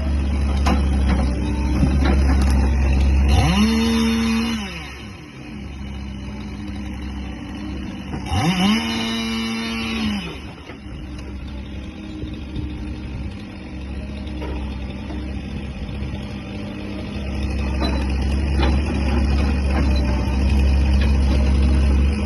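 Heavy diesel engine running steadily with a low hum, revving up twice: each time the pitch rises quickly, holds for a second or two, then falls back.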